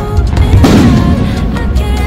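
Loud music plays throughout, and an aerial firework shell bursts with a boom about half a second in, its rumble fading quickly.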